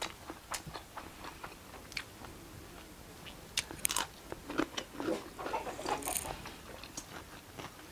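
Close-up eating sounds: a person chewing food, with irregular crunches and mouth clicks.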